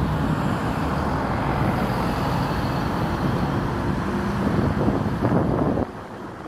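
Steady outdoor rumble of engines with a low hum, dropping suddenly in level near the end.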